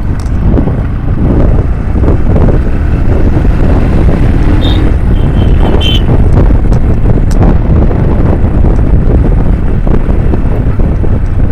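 Motorcycle on the move, with heavy wind buffeting on the microphone over steady engine and road noise.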